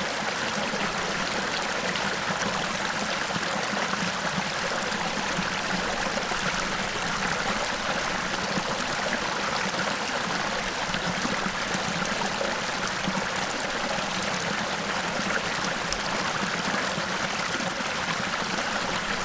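Small waterfall: a steady, unbroken rush of falling and splashing water.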